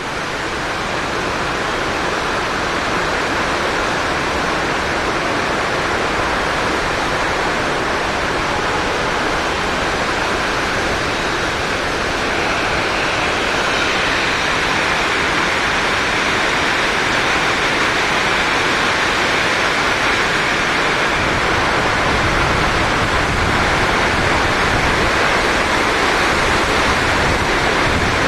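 Steady, heavy rain: a dense, even hiss with no separate drops standing out. A deeper rumble joins it about three-quarters of the way through.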